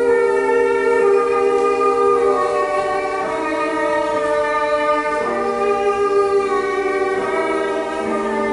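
Slow music on bowed strings, led by violin: long held notes, two or three sounding together, moving to new notes every second or two.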